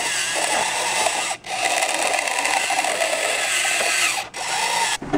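Small continuous-rotation servo motor whirring as it drives a candy dispenser through a rubber-band belt, its pitch wavering as it struggles to turn the dispenser. The whirr breaks off briefly twice.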